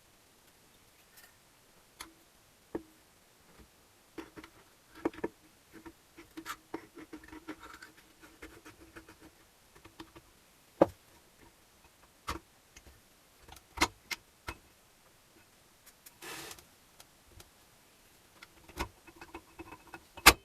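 Intermittent clicks, taps and clinks of hand tools and metal engine parts being handled during engine assembly, with a few sharper knocks, the loudest a little after ten seconds in, around fourteen seconds and near the end.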